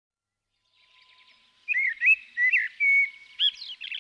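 A songbird singing a run of clear, gliding whistled notes, starting after about a second and a half of silence, with fainter, higher twittering from other birds behind it.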